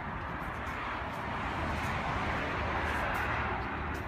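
Steady indistinct background noise, an even hiss with a low rumble underneath and a few faint clicks, with no single event standing out.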